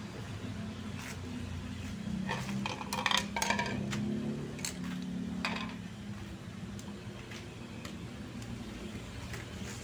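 Chicken frying in a pan of bubbling oil over a wood fire, with a cluster of metallic clinks and knocks about two to four seconds in and a couple more shortly after. A steady low hum runs underneath.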